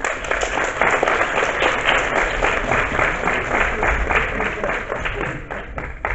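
Audience applauding: a dense, steady spread of clapping that thins out near the end.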